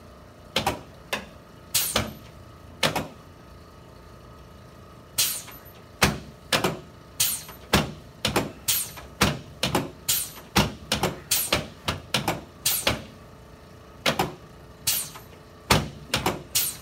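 A long series of sharp clicking strikes from a chiropractic adjustment: a few spaced out in the first three seconds, then a pause, then a quick run of two to three clicks a second.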